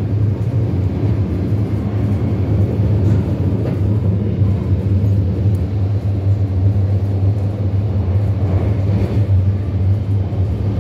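İzmir Metro train running, heard from inside the passenger car as a steady low rumble.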